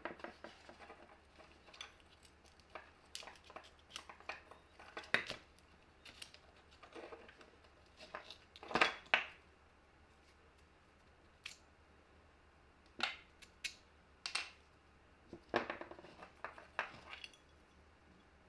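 Plastic parts of a dismantled Makita cordless drill being handled: the housing shell, switch and brush holder plate click, knock and scrape as they are pulled apart and set on a wooden bench. The sounds come as scattered short clicks and brief scrapes, the loudest cluster about halfway through.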